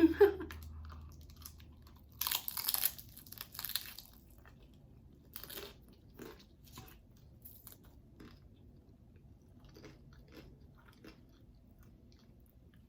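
A close-miked bite into a taco: a cluster of loud crunches about two seconds in, then softer chewing and mouth clicks that fade away.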